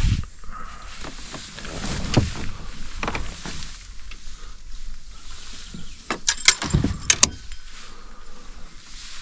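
Knocks, clicks and rattles of a small open fishing boat and the gear in it as it is moved about on calm water, with a cluster of sharp clicks and knocks about six to seven seconds in.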